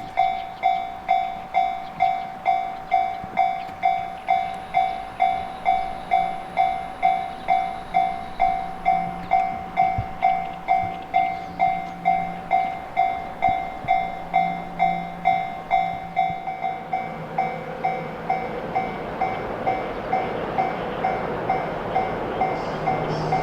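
Japanese level-crossing warning bell ringing steadily, about two strokes a second. About two-thirds of the way through, the strokes grow softer as the running noise of an approaching Yamagata Shinkansen train swells beneath them.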